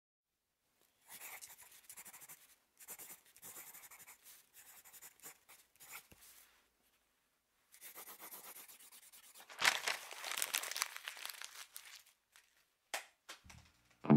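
Faint, scattered rustling and crinkling noises with a few clicks, louder for about a second and a half around ten seconds in, opening a recorded track; low notes come in just before the end.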